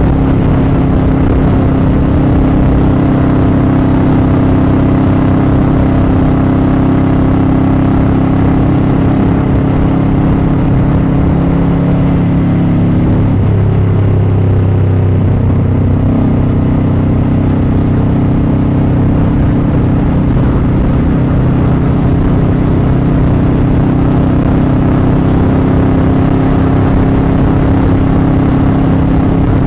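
Motorcycle engine running at steady speed while riding. About halfway through its note drops, then settles at a new steady pitch.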